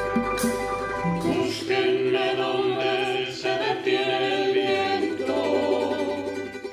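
Digital pianos holding a chord; about a second and a half in, a small mixed group of men's and women's voices starts singing together over the piano accompaniment, and the music eases off near the end.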